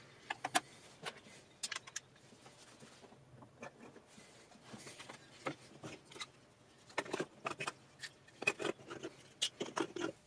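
Small metal utensils and a tin baking tray being set down on a miniature wooden countertop: a scatter of light clinks and taps in short clusters, busier in the second half.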